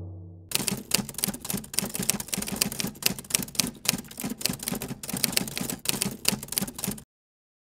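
Typewriter sound effect: rapid, uneven clacking of keys, starting about half a second in and cutting off suddenly about seven seconds in.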